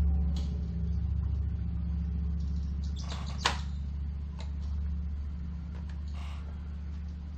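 Steady low hum that eases off slightly, with a few light knocks and a sharp click about three and a half seconds in.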